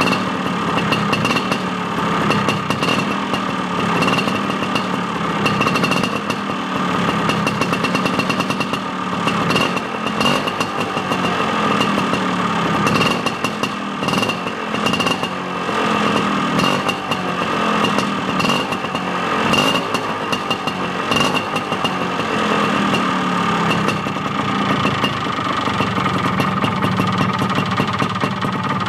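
Vespa 50 Special's small two-stroke single-cylinder engine running through a Proma aftermarket exhaust, held steady near idle with its pitch wavering a little up and down.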